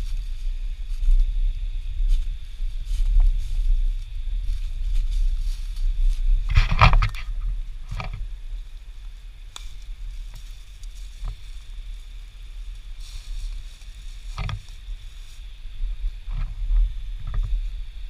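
Footsteps through dry leaf litter and brush: scattered crunches and twig snaps over a steady low rumble, with a louder rustle of brush about seven seconds in and smaller ones near the end.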